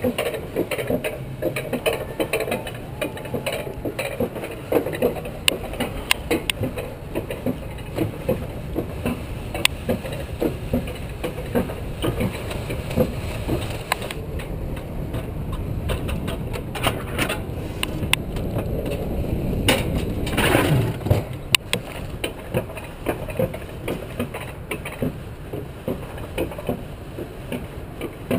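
Alpine coaster sled running on its steel rails: a steady rumble with frequent irregular clicks and clacks, swelling louder for a moment about two-thirds of the way through.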